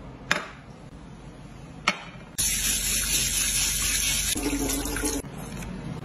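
Tap water running hard into a steel sink and splashing over a snapping turtle's shell as it is washed. It starts about two and a half seconds in and cuts off about three seconds later, after two sharp clicks earlier on.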